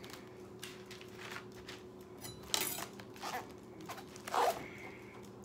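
A few short scraping and rustling sounds of raw cabbage and a kitchen knife being handled on a cutting board, the loudest about four and a half seconds in.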